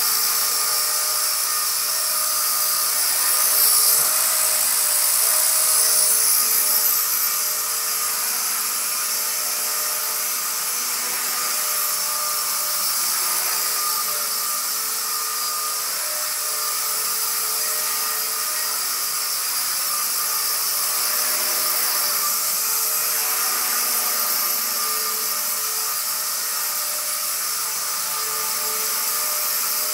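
Battery-electric Walkera V120D02S micro RC helicopter in flight, its motors and rotors giving a steady high-pitched whine that swells briefly a few seconds in.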